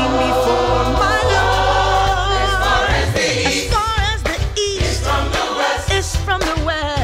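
Gospel song: a choir singing over a band with a steady bass line, and a saxophone playing a wavering melodic line.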